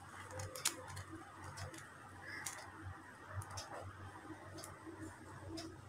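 Faint scattered clicks and light taps as pieces of paneer are set one by one into thick spinach gravy in a frying pan, over a low steady hum.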